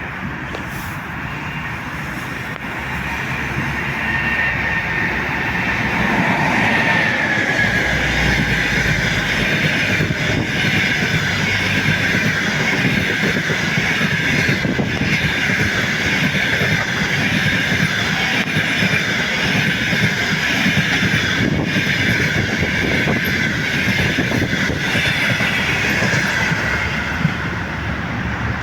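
An EP20 electric locomotive and its passenger coaches passing on the line, a steady wheel-on-rail rumble and hiss that swells over the first few seconds. A high whine dips slightly about six seconds in, and a few faint clacks over rail joints come later.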